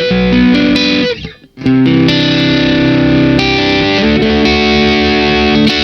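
Electric guitar on its neck pickup played through a Boss DS-1 distortion pedal set to low gain, with the tone below halfway, for a light overdriven sound. Held chords ring, break off briefly about a second in, then resume and are damped near the end.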